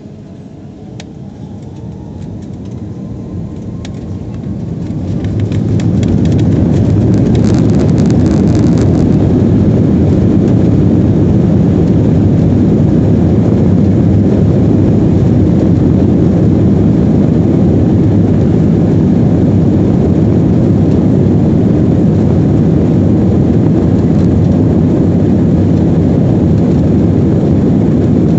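Airliner engines spooling up to takeoff power, heard from inside the cabin. A faint rising whine and growing noise build over the first six seconds into the steady, loud, deep rumble of the takeoff roll.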